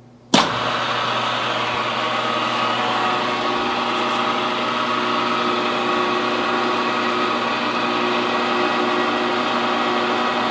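Milling machine spindle switched on about a third of a second in, then running steadily with a hum made of several steady tones. The face cutter is spinning free above the Ironhead cylinder head, before it is touched off on the surface.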